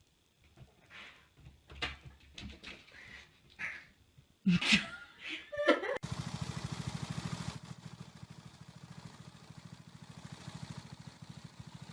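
Cat purring close to the microphone, a steady fast pulsing that starts about halfway through. Before it come a few scattered soft knocks and a brief squeak.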